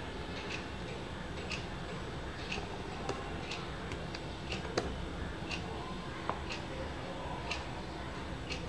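A clock ticking steadily about once a second, over a low background hum. Two or three sharper clicks from fingers working the phone's small plastic parts apart stand out, the loudest about halfway through.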